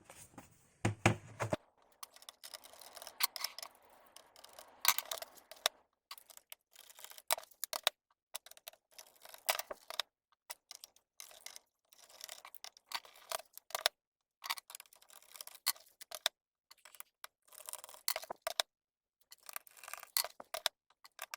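Irregular small clicks and scrapes of a screwdriver backing screws out of a laptop's plastic bottom case, with the small metal screws handled and set down. There is a louder knock about a second in.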